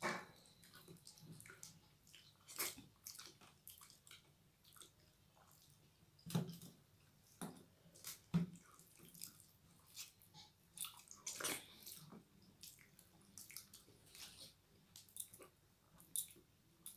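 Quiet, scattered wet clicks and smacks of eating soft, starchy rice by hand: fingers mixing and scooping the rice on steel plates, along with chewing.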